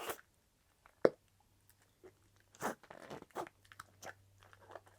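Sticky Flarp noise putty being pulled and squeezed in the hands, giving scattered small wet crackles and clicks, with one sharp click about a second in. The putty is overly sticky, which the owner puts down to heat damage.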